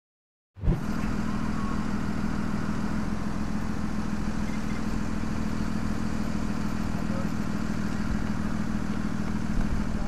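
Fire truck's engine idling: a steady low engine rumble with a constant hum, cutting in abruptly about half a second in.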